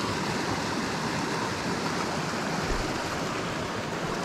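A small, shallow mountain stream running over rocks: a steady rush of flowing water.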